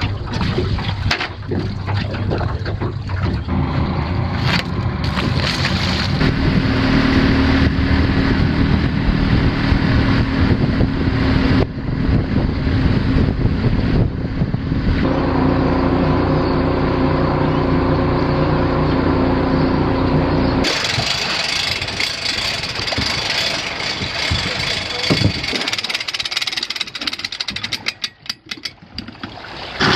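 A motor running steadily with an even drone, its sound changing abruptly about two-thirds of the way through.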